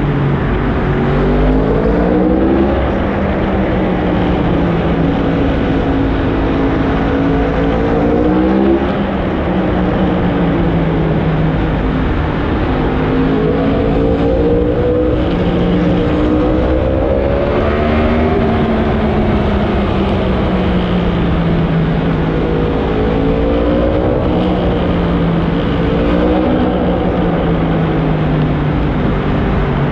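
Yamaha R1M's crossplane inline-four running through a decatted Black Widow aftermarket exhaust, its pitch climbing under throttle and falling back several times: a sharp drop about a third of the way in, a long slow fall past the middle, and another climb near the end. The exhaust note echoes off the walls of a road tunnel.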